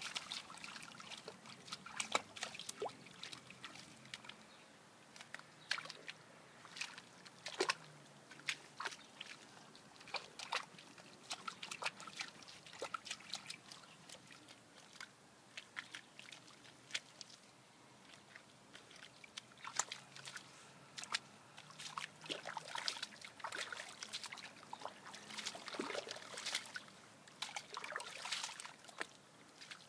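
A dog playing in a shallow muddy puddle, its paws and muzzle splashing and sloshing the water in irregular bursts of splashes.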